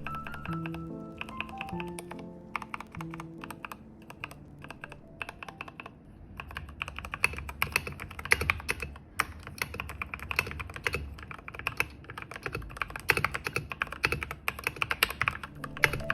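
Typing on a TM680 hot-swap mechanical keyboard fitted with hand-lubed Gateron Milky Yellow linear switches and PBT XDA keycaps, with background music. The keystrokes come faster and louder about six seconds in.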